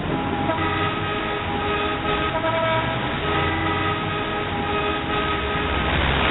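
Low vehicle rumble with several steady pitched tones held over it, like a sustained horn, cutting in abruptly.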